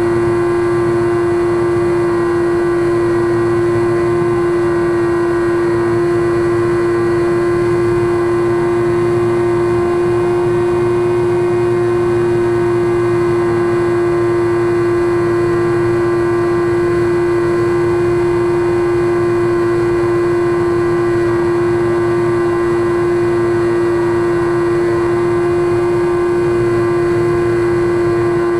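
Brushless electric motor (Turnigy Aerodrive SK3 35/36, 1400kv) spinning a three-blade 9x6 propeller on a SkyWalker FPV plane in level cruise, heard from the onboard camera: a steady, unchanging whine with a low hum beneath.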